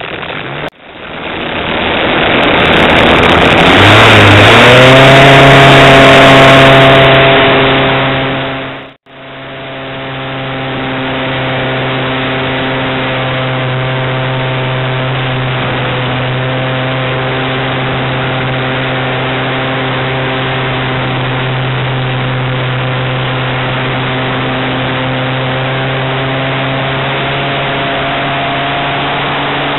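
Small model-airplane engine heard from on board, throttling up for takeoff with its pitch rising about four seconds in under a loud rush of air on the microphone. After a brief cut-out about nine seconds in, it runs steadily at high revs in climbing flight.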